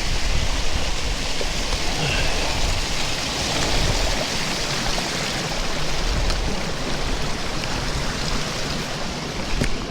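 Strong mountain wind blowing over the microphone: a steady rushing noise with a heavy low buffeting rumble throughout.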